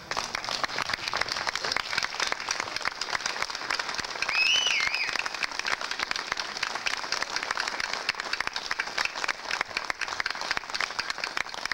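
Crowd applauding, a dense steady patter of many hands clapping, with a brief wavering whistle about four seconds in.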